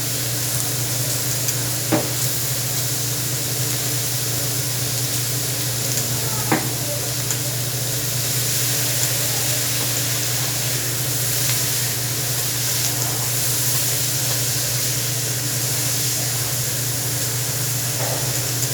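Food sizzling steadily on a hot teppanyaki griddle, over a steady low hum, with two sharp clicks about 2 and 6.5 seconds in.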